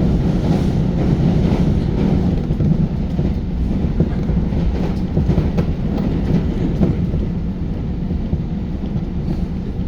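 Electric commuter train running along the line, heard from inside the car: a steady rumble with occasional clicks of the wheels over the track.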